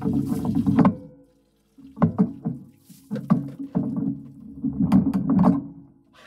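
A wooden-handled hammer tapping on small pieces of wood in quick runs of light knocks, with a short pause about a second in.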